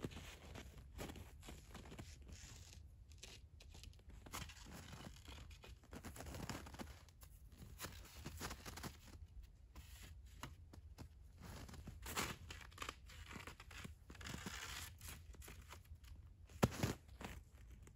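Footsteps crunching in icy-crusted snow and the rustle of long wooden poles being handled and shifted on a tipi-shaped shelter frame. A sharp knock of pole on pole, the loudest sound, comes just before the end.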